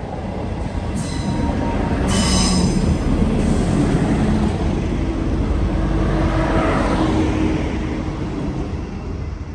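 GWR Class 158 diesel multiple unit passing close by at speed: engine and wheel rumble swells as it draws level and fades as it goes. Two short high squeals come about one and two seconds in.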